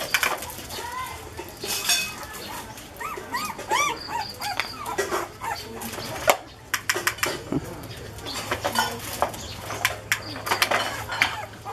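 Puppies whimpering and squeaking in a series of short, high, rising-and-falling calls, with scattered clicks and a sharp knock about six seconds in.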